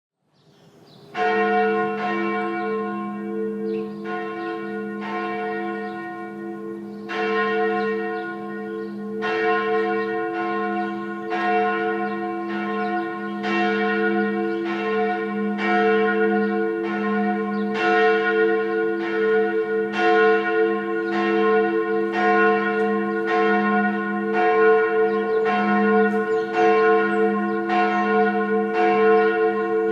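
Tocsin: a single church bell rung as an alarm, struck over and over with its ringing overlapping between strokes. The strokes come faster after about nine seconds.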